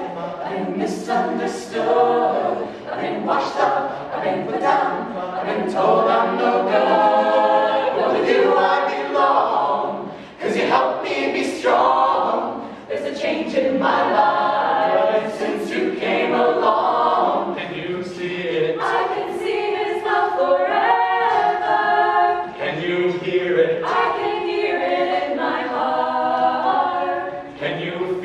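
Mixed-voice a cappella group of men and women singing together in harmony, with no instruments.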